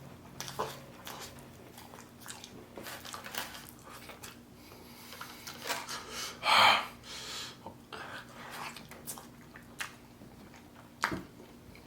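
Close-up chewing and biting of a sauce-soaked al pastor wet burrito: irregular wet mouth noises, with one louder burst about six and a half seconds in.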